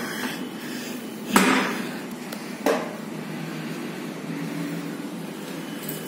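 Steel door of an electrical control panel enclosure being swung shut: two knocks about a second and a half apart, the first the louder, over a steady background hum.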